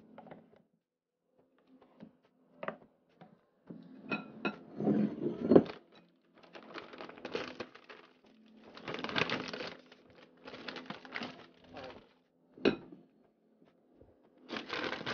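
Kitchen handling noises: glass bowls and utensils knocking and being set down on a countertop, with short rustles in between and a sharp knock about twelve and a half seconds in.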